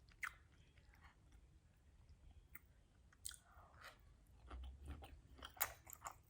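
Faint close-up mouth sounds of someone chewing food: soft wet smacks and small clicks. They come sparsely at first, then more often and a little louder in the last few seconds.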